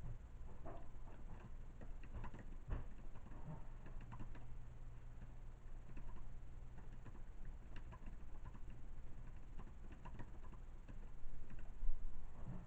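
Faint, irregular light clicks and taps over a low steady hum, a little louder near the end.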